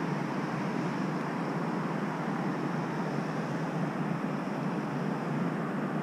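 Steady outdoor background noise, an even low hiss and rumble with no distinct events.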